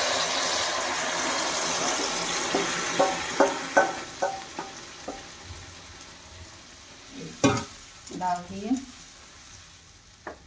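Wet onion-tomato gravy poured into hot ghee in a kadai, hitting with a loud sizzle that dies down over the first few seconds. Then a string of light clicks and knocks of the bowl and spoon against the pan, with one sharper knock about seven seconds in.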